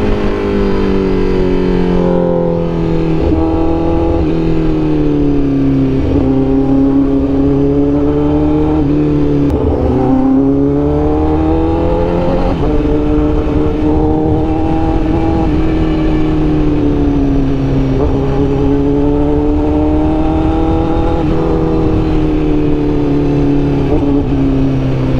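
Honda CBR1000RR-R Fireblade SP's inline-four engine running under way, its note rising and falling several times as the throttle is eased on and off.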